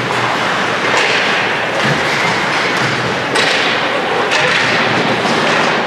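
Ice hockey game sounds in a rink: a steady hiss of rink and crowd noise with several sharp knocks and thumps from play.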